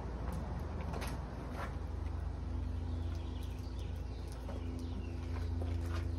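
Wind buffeting the microphone, with scattered light creaks and clicks, and a faint steady hum that comes in about two and a half seconds in.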